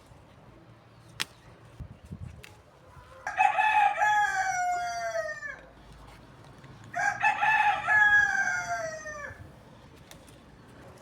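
Rooster crowing twice, each crow about two seconds long and dropping in pitch at the end. A sharp click comes about a second in.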